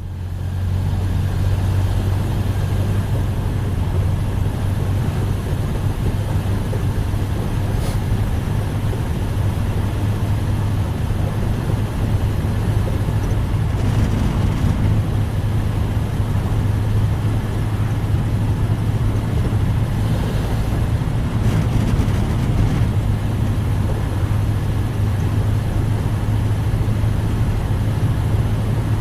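1931 Ford Model A's four-cylinder engine running as the car drives, a steady low drone that fades in at the start.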